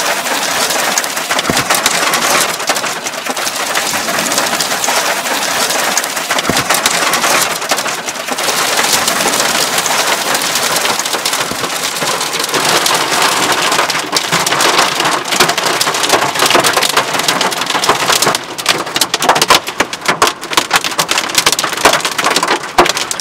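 Hail and heavy rain pelting the roof and windows of a car, heard from inside the cabin: a loud, dense clatter of countless hits. Later on the hits come more separately and sharply.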